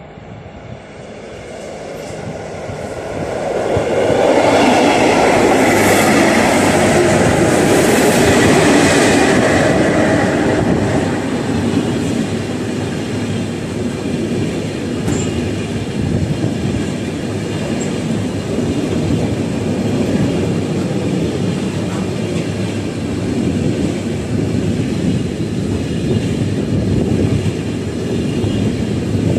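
A freight train passing close by on the next track. The locomotive comes past loudest from about four to ten seconds in, then a long string of double-deck car-transporter wagons keeps rolling by with steady wheel rumble.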